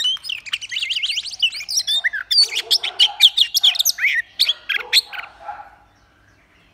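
Oriental magpie-robin singing a fast, varied run of whistled notes and sliding phrases, stopping about five and a half seconds in.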